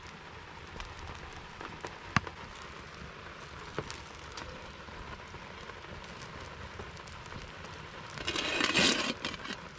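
Log campfire crackling with scattered sharp pops, over a steady hiss of light rain. A louder rustling handling noise comes about eight seconds in.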